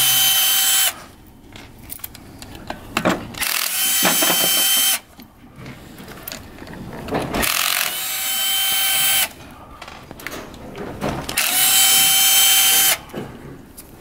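Cordless electric screwdriver with a Torx bit backing out the cover-plate bolts of a Bafang e-bike hub motor: four short runs of steady, even-pitched motor whine of about a second and a half each, with faint clicks and knocks of the tool and bolts in the gaps between.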